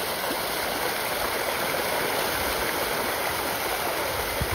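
A dense school of fish thrashing at the water's surface in a feeding frenzy, making a steady, continuous splashing.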